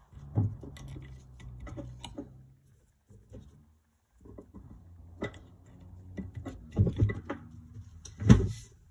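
Workshop handling sounds: scattered clicks, clinks and knocks of tools and engine parts being moved about on a workbench, over a low steady hum. A heavier thump comes near the end.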